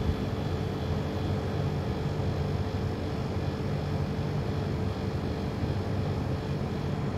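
A steady low mechanical drone with a constant hum, unchanging throughout.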